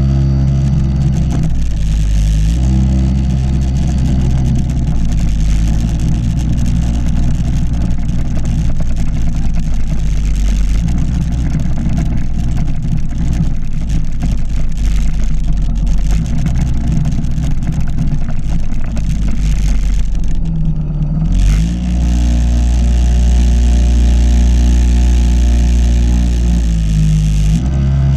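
Yamaha PW50's 49 cc two-stroke single-cylinder engine running under way, recorded close up from the handlebars. Its pitch steps up and down with the throttle, and about three-quarters of the way through it drops back briefly before picking up again.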